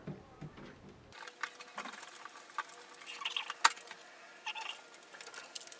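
Hands handling computer parts inside a PC case: scattered small clicks and light metallic clinks, a few a second at most, with no steady running sound.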